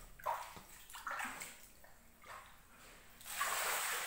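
Shallow floodwater splashing on a tiled floor under bare feet: a few short splashes, then a longer, louder splash near the end.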